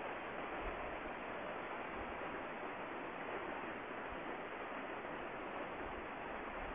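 River water rushing steadily past a rocky bank, an even, unbroken rush.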